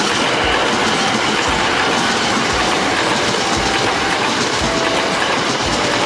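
Hankyu Kyoto Line electric train passing close by, a steady loud rumble of running noise with its wheels clacking over rail joints about once a second.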